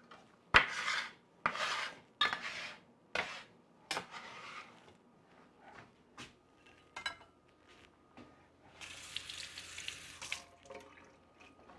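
Kitchenware clattering and scraping: a sharp knock about half a second in, a run of short scrapes over the next few seconds, and a longer scraping stretch about nine seconds in.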